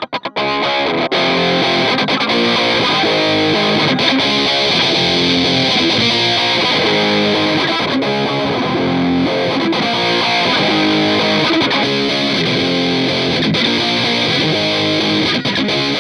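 Electric guitar played through a Boss DS-2 Turbo Distortion pedal: a distorted riff repeating in a steady rhythm, with a brief break just after the start.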